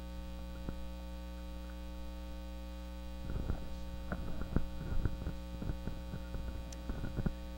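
Steady mains hum on the sound system. From about halfway through there is a run of soft knocks and rubbing as the handheld microphone is handled and passed from one person to another.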